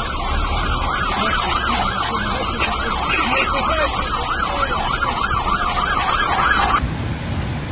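Emergency vehicle siren sounding in a fast, rising-and-falling warble over a low rumble. Near the end it cuts off abruptly to a steady rushing noise.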